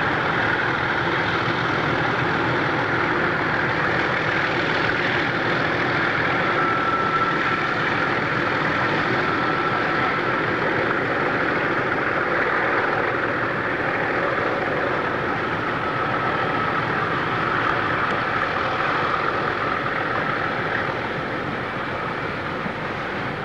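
Three English Electric ZB diesel-electric locomotives working hard, hauling a heavy paper train up a grade: a steady, heavy engine drone that gives way to the rumble of the wagons rolling past, easing slightly near the end.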